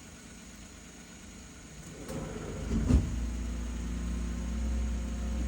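A car's engine running close by, growing louder about two seconds in, with a single knock near the middle, then a steady low rumble.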